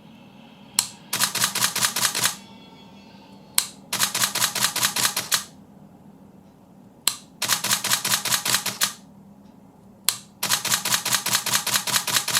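Canon 5D Mark III shutter and mirror firing in continuous bursts: four times, a single click followed by a rapid run of shutter clicks, several a second, each run lasting about a second and a half. The camera is being stress-tested after a repair for a power fault.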